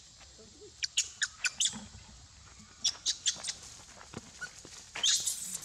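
Young macaques squeaking: two quick runs of four or five short, high-pitched squeaks, then a louder, longer squeal near the end.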